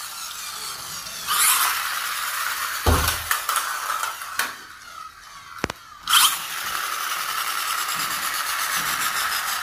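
Toy stunt car's small electric motor and plastic gears whirring as it drives over a tiled floor, with a couple of sharp knocks as it hits the wall and tips about. The whir drops away for about a second and a half midway, then comes back and runs on steadily.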